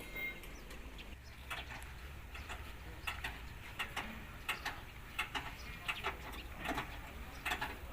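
Irregular light clicks and taps, several a second at times, over a low steady hum.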